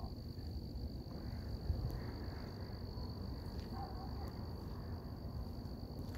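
Insects trilling in one steady, unbroken high tone over a low rumble, with a brief soft bump a little under two seconds in.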